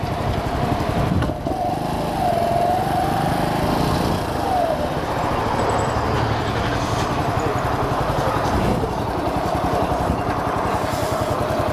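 Single-cylinder engine of a 2009 Q-Link XF200 supermoto running at low speed as the bike creeps along.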